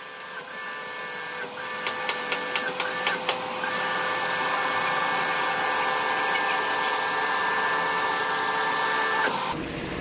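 Car air-conditioning system running while it is charged with R-134a refrigerant: a steady mechanical whir with a high whine and hiss. There are a few sharp clicks in the first few seconds, it gets louder about four seconds in, and it cuts off just before the end.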